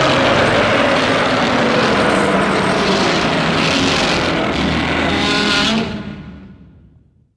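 A Showa Godzilla-style monster sound effect: one long, harsh, noisy blast that holds steady for several seconds and then fades away near the end.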